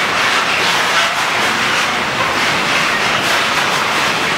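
Freight wagons loaded with lorry semi-trailers rolling past: a steady, loud rush of wheel-on-rail noise.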